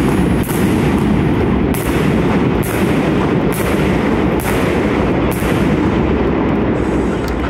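Indoor aerial fireworks bursting under a stadium dome: a string of sharp bangs about one a second, each echoing off the roof, the last one about five seconds in.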